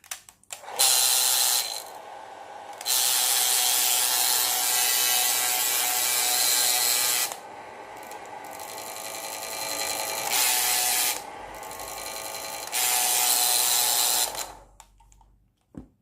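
Hair dryer running with excessive, abnormal noise, the fault it is to be repaired for. Its sound steps up and down between louder and quieter stretches several times, then cuts off a little over a second before the end.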